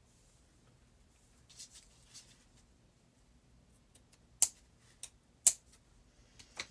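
Quiet handling of craft materials on a tabletop, with a few sharp clicks of tools being handled, the two loudest about a second apart past the middle.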